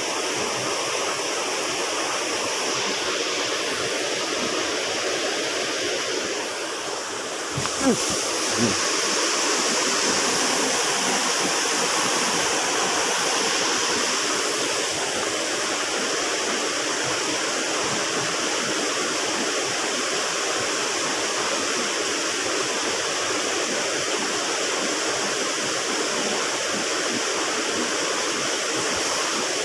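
Steady rushing of a small river's flowing water, with two brief knocks about eight seconds in.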